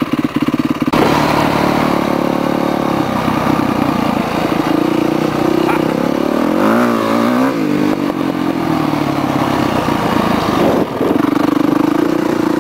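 Yamaha 450F motocross bike's single-cylinder four-stroke engine under way off-road. The throttle opens about a second in and the bike pulls away. The revs rise and fall as it climbs the trail, then settle to a steadier note near the end.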